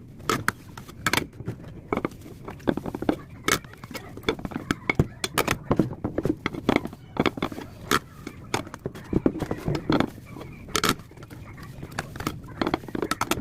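Dishes and cutlery being washed by hand in a sink, clinking and knocking against each other in quick, irregular clatters.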